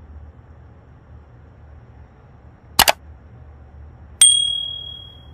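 Subscribe-button animation sound effect: a quick double mouse click, then a bell ding that rings out and fades over about a second.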